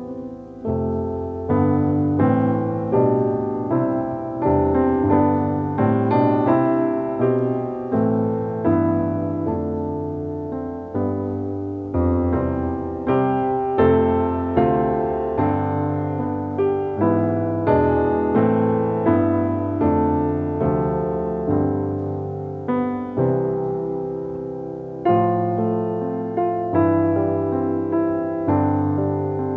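Slow solo piano music: chords and a melody, each note struck and then fading.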